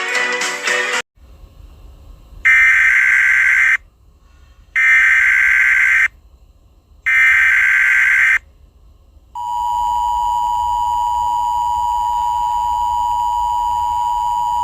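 Emergency Alert System tones: three short bursts of SAME header data tones, each a little over a second long with gaps between, followed by the EAS two-tone attention signal, a steady dual tone held through the end. A song cuts off about a second in, just before the first burst.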